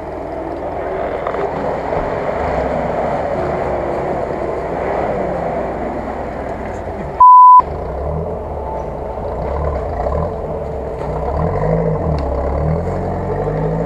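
Off-road SUV engine running hard under load, its revs rising and falling in the second half. A short, loud censor bleep cuts in about halfway through.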